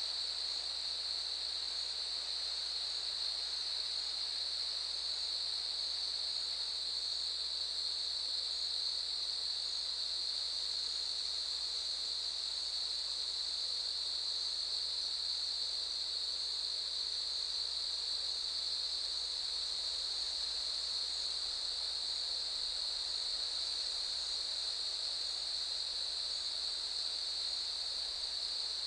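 A chorus of cicadas buzzing in one steady, unbroken high-pitched drone.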